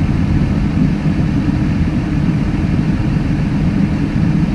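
Farm tractor engine running steadily at an even speed, heard from inside the cab: a loud, unchanging low hum.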